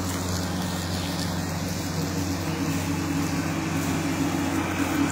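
Battery-powered push lawn mowers running under load, their motors and blades making a steady hum; a second, higher hum comes in about two seconds in and grows slightly louder.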